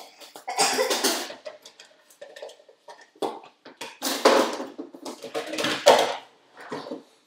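A utensil clattering and scraping in a mixing bowl while butter is being mixed, in irregular bursts, the loudest about a second in, around four seconds in and near six seconds.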